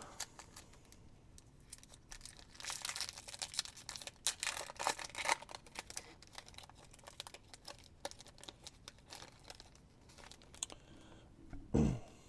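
Foil wrapper of a basketball trading-card pack being torn open and crinkled, with a run of ripping and rustling in the first half and light card-handling clicks after. A brief low thump comes near the end.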